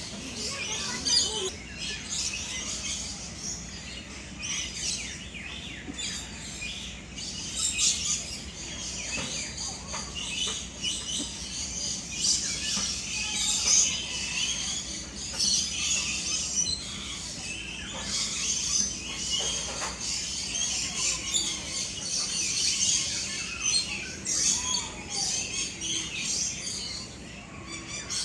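Many birds chirping and calling at once, a continuous overlapping chorus of short high-pitched notes.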